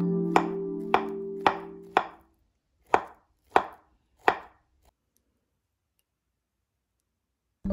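Kitchen knife slicing through an avocado onto a wooden cutting board: seven sharp knocks of the blade on the board over about four seconds, roughly half a second apart with a short gap in the middle.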